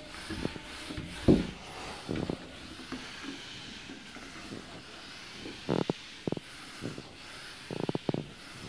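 Whiteboard duster rubbing across the board, wiping off marker writing in repeated strokes. A few short, louder sounds break in about six and eight seconds in.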